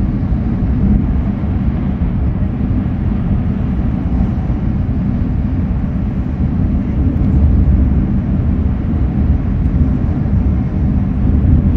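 Steady low rumble and rushing noise inside the cabin of an E6 series Shinkansen running at about 320 km/h.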